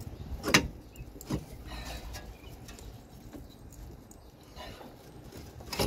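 Metal clunks and knocks from a Mercury Villager's front brake rotor, hub and steering knuckle being turned and handled by hand: a sharp knock about half a second in, a lighter one under a second later, then quieter scraping and handling noise.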